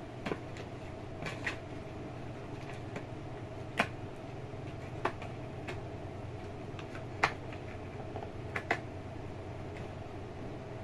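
A cat's paws and claws batting and scratching at a cardboard box, making scattered sharp taps, the loudest about four and seven seconds in, over the steady hum of an electric fan.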